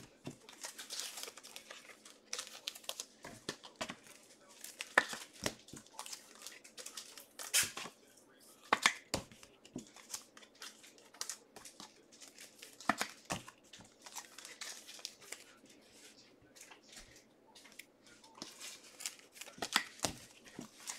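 Trading card pack wrappers being torn open and crinkled by hand: a run of irregular sharp rips and crackles.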